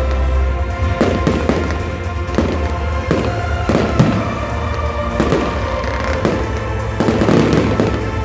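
Fireworks display: aerial shells bursting in a rapid series of bangs, about one or two a second, over music with a heavy bass.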